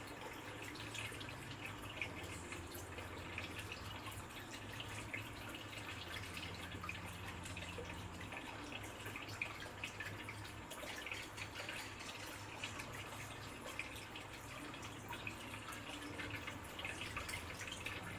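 Water trickling and dripping, with many small irregular drips over a steady low hum.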